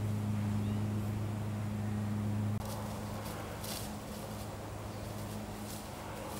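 A steady low hum under outdoor ambience. It drops in level about two and a half seconds in, and a few brief rustles follow.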